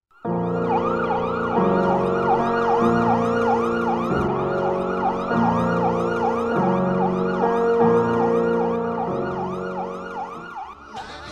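Emergency vehicle siren yelping, its pitch rising and falling quickly about three times a second over steadier lower tones. It fades away near the end.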